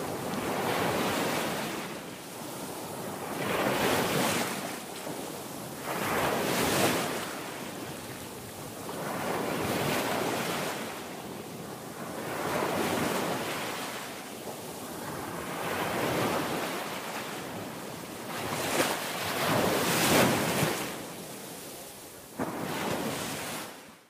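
Ocean surf: waves washing in and drawing back, the noise swelling and fading about every three seconds.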